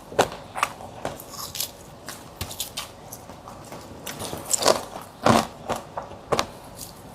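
Close-miked eating: bites and crunchy chewing as irregular sharp crunches and clicks, the loudest cluster a little past the middle.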